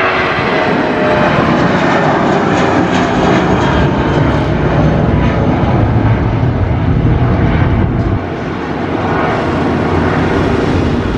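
An Airbus A320's IAE V2500 turbofan engines at take-off thrust as the jet climbs out: a loud, steady roar with a deep rumble underneath. The level dips slightly about eight seconds in.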